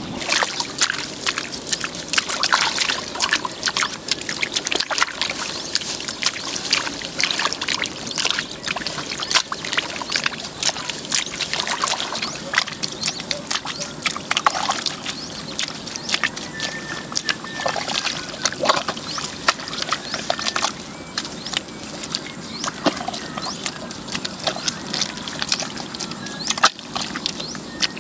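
Rice seedlings being transplanted by hand into the wet mud of a flooded paddy: irregular squelching, sloshing and small splashes of water as hands push the seedlings into the mud and legs shift through it.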